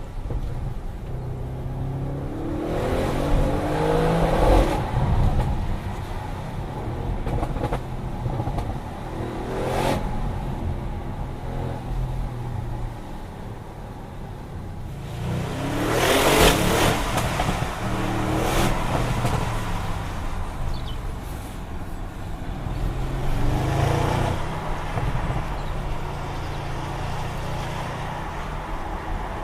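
Audi RS6 Performance's twin-turbo V8 on a drive, running steadily with three surges of hard acceleration where the revs climb: about three seconds in, around sixteen seconds, and again near twenty-four seconds. A short sharp sound comes near ten seconds.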